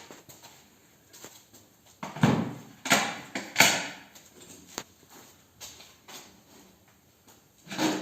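Handling noises: a few short knocks and scrapes of objects being moved, the loudest three coming in quick succession between about two and four seconds in.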